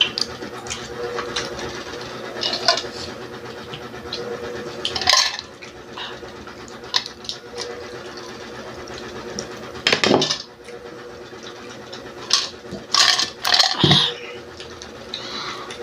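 Eating sounds: scattered crunching and clicking, with utensils and dishes clinking, over a steady low hum.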